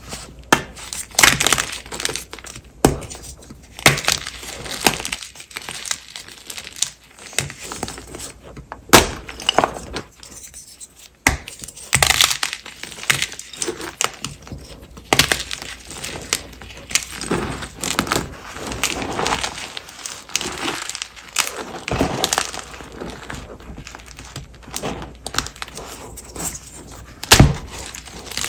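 Blocks of Ader gym chalk snapping and crumbling as they are crushed by hand: a dense run of sharp cracks and dry, gritty crunching, with a few loud snaps among them. The blocks are uneven in hardness, some of them hard.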